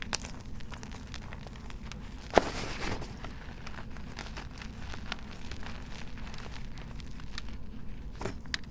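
Dyed gym chalk blocks being crushed and crumbled: a sharp crack about two seconds in, then a steady stream of fine crunching and crackling, with another snap near the end.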